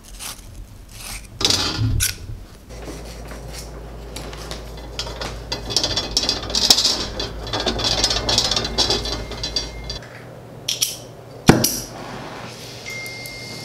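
Small metallic clinks and rubbing as copper tubing and a fitting are handled and pushed together. Near the end a single sharp pop as a brazing torch is lit, followed by the steady hiss of its flame with a faint whistle.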